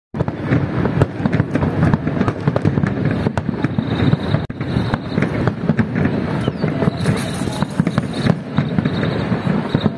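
Aerial fireworks going off in quick succession: a continuous crackling and popping with many sharp bangs.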